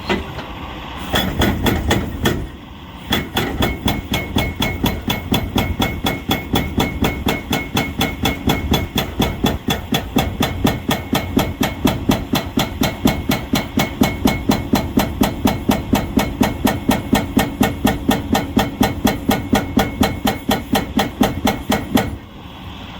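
Excavator-mounted hydraulic breaker hammering in a steady run of blows, about three to four a second, with a short pause near the start and stopping just before the end.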